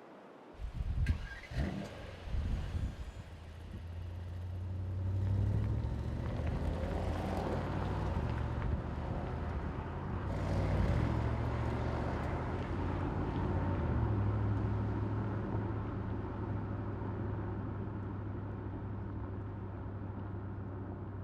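The 4.0-litre twin-turbo V8 of a 2024 Mercedes-AMG GT 63 4MATIC+ Coupé, with its exhaust, comes in suddenly with a few quick revs. It then pulls as the car accelerates, its pitch stepping through several gear changes, and eases off gradually into a steadier run.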